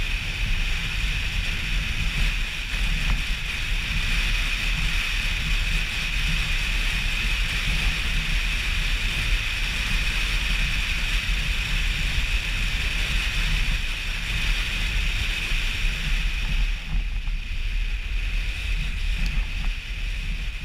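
Wind rushing over the microphone of a camera mounted outside a moving car, a steady loud rush with low buffeting rumble underneath.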